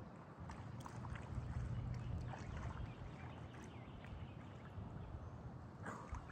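Water sloshing and splashing as a freshly caught snakehead is rinsed clean in the creek, over a low rumble with a few light clicks.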